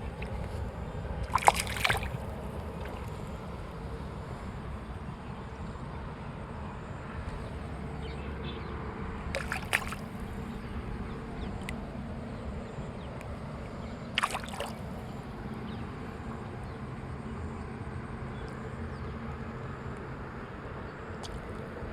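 Hooked fish splashing at the water's surface: three short splashes, about a second and a half, nine and a half, and fourteen seconds in, the first the loudest, over a steady low rumble.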